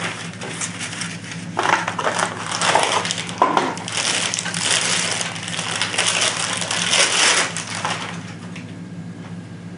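Paper packaging being handled, crumpling and crinkling in irregular bursts, dying down near the end.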